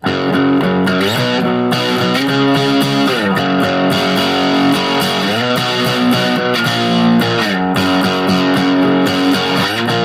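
Electric guitar played through a SubZero SNOWSTORM mini distortion pedal with its tone knob turned fully up: overdriven chords, starting abruptly, with slides between them.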